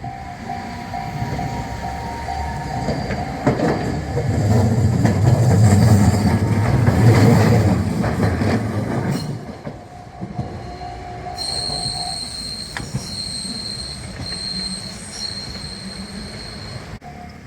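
A train passing on the rails, its rumble building to a peak around six to eight seconds in and then fading. A level-crossing warning bell rings at the start and again later, and a high, thin wheel squeal comes and goes through the second half.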